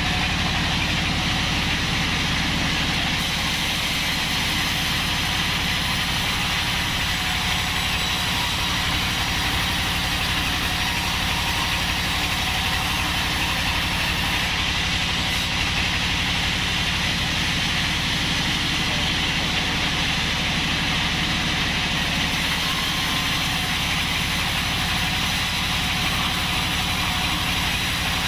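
Sawmill bandsaw machinery running steadily, a continuous motor hum with a hissing noise above it and no break or change.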